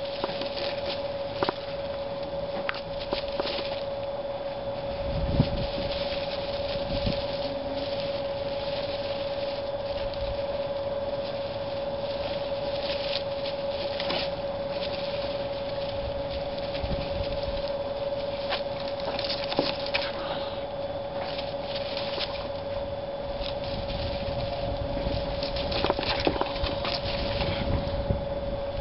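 Baby black-tailed prairie dogs scrabbling and rustling about in dry hay, with crackly scratches on and off, over a steady high hum. A few low wind thumps hit the microphone, about five seconds in and near the end.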